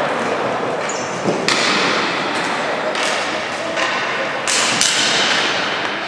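Ball hockey play in a reverberant hall: several sharp clacks of sticks striking the ball and the ball hitting the boards, over a steady din of players' and spectators' voices.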